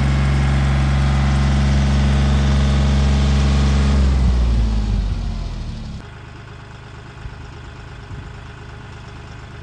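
Kioti compact tractor's diesel engine running loud and steady, then slowing with its pitch falling about four seconds in. From about six seconds it is a quieter, steady idle.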